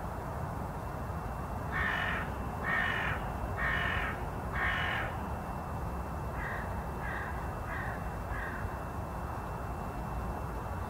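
A crow cawing four times in a row, then four quieter, shorter caws, over a steady low rumble.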